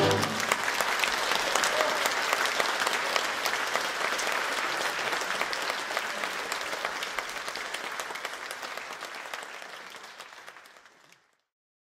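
Applause from a theatre audience and the costumed chorus on stage, breaking out as the last of the music stops at the very start. The clapping dwindles steadily and cuts off shortly before the end.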